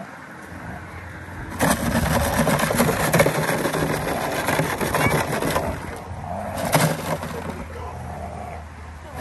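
Plastic gallon jug and cardboard shaken and crushed hard: a crackling, crunching rattle that starts about a second and a half in and runs for some four seconds, with one more short burst near the end.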